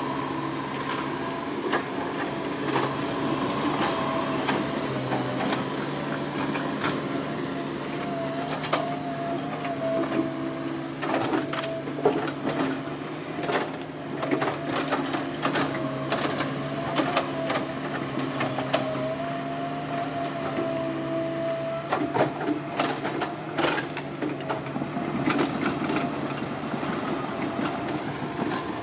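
Diesel engine of a tracked heavy machine running steadily at work, with a wavering whine over it and frequent sharp clanks and knocks, thickest through the middle.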